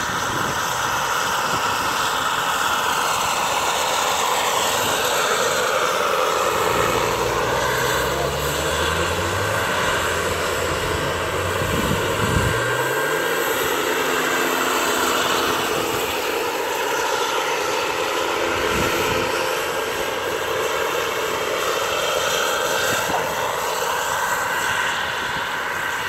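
Radio-controlled scale model helicopter flying: a steady engine-and-rotor whine whose pitch shifts up and down as it manoeuvres.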